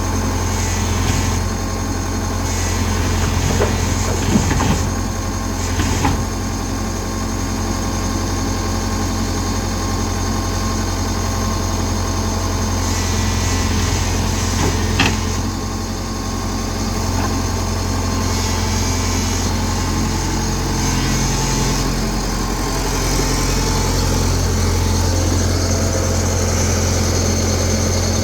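Diesel engine of an excavator running steadily with a low drone, with a few sharp metallic knocks about four to six seconds in and again about fifteen seconds in.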